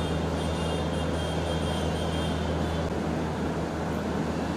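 Steady low hum of a passenger train standing idle at a station platform, over a general station background haze. A faint high whine rides over it for the first few seconds.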